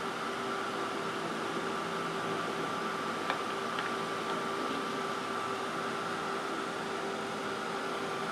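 Craft heat gun blowing steadily, a constant whir of its fan motor with a hum, drying wet Distress Oxide ink on paper. A couple of faint small clicks come through about three to four seconds in.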